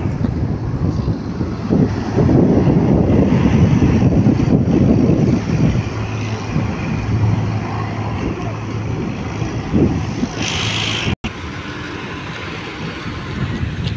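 Road traffic and diesel vehicle engines running, with a steady engine hum for a few seconds midway and heavy rumble over the microphone. The sound cuts out for an instant near the end.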